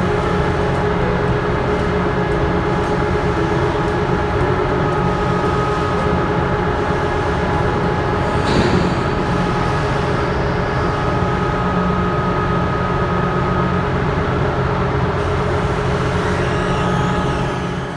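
Steady, loud engine drone of a moving vehicle or vessel: a low rumble with a few constant hum tones above it. There is a brief louder rush about eight or nine seconds in, and the drone fades away near the end.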